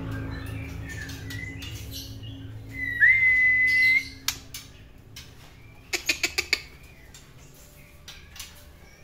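White-rumped shama singing: scattered short notes, then a loud clear whistle about three seconds in that sweeps up and holds steady for about a second. A quick run of about six sharp clicking notes follows a couple of seconds later.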